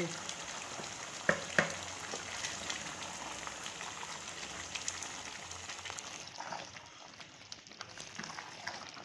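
Chicken, potatoes and masala sizzling and bubbling in a pot as the cooking liquid cooks down, a steady crackling hiss. There are two sharp clicks about a second and a half in, and the sizzle grows quieter and duller about six seconds in.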